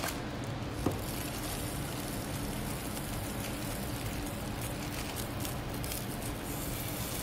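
Steady hiss and hum of background noise, with faint crinkling of a plastic zip-top bag being handled and opened.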